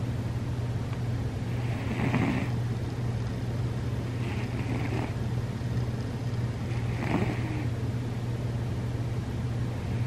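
Sleeping domestic cat snoring: a short, breathy snore on each breath, about every two and a half seconds, three in all, over a steady low hum.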